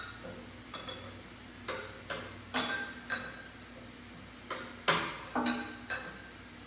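About ten irregular sharp metal-on-metal clinks and clanks from tools and parts being handled, several ringing briefly. The loudest comes about five seconds in.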